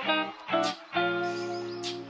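Background instrumental music led by a guitar, a few notes held and then changing.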